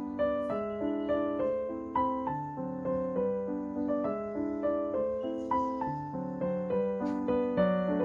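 Background piano music: a gentle melody of single notes, about two a second, over lower chords.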